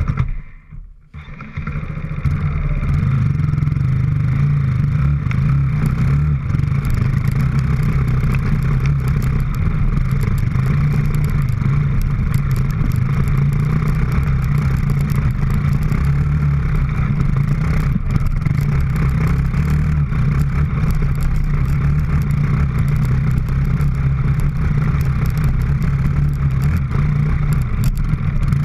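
Small engine of an off-road vehicle running steadily as it is ridden along a dirt trail, with a brief drop-out about a second in.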